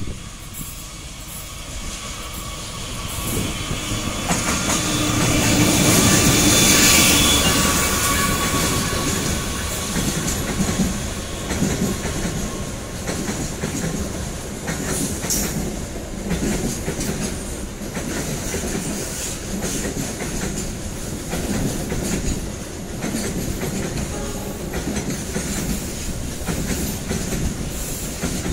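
A CC206 diesel-electric locomotive passes close by, loudest about six to seven seconds in. A long train of loaded container wagons follows it, rolling past with a steady, repeating clatter of wheels over the rail joints.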